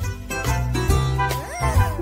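Background music with a steady bass line and a short rising glide about one and a half seconds in.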